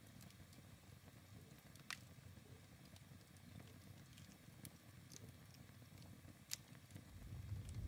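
Near silence: a faint low rumble with two soft clicks, one about two seconds in and one about six and a half seconds in. The rumble swells in the last second.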